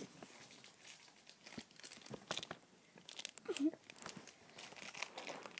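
Plastic candy wrapper crinkling and crackling in short, irregular bursts as it is opened by hand.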